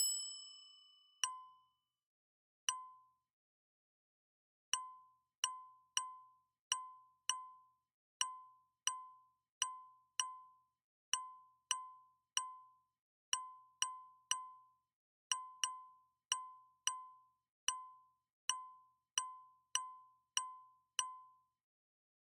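Electronic alert tones from online auction software: one ringing chime, then a run of short, identical beeps at uneven intervals, often less than a second apart.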